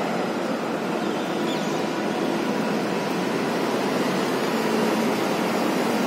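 Steady hum of road traffic from the flyover and streets below, an even wash of noise with no single vehicle standing out.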